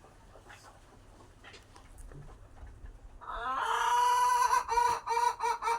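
Chicken calling on a poultry farm: one long, even-pitched call starts about three seconds in, then breaks into quick repeated pulses near the end.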